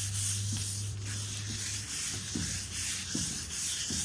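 Fine 1,200-grit sandpaper rubbed lightly back and forth by hand over a waxed, stained timber tabletop, a rhythmic hiss at about two strokes a second. This is the light sanding-in of a freshly applied hemp-oil wax before it is buffed.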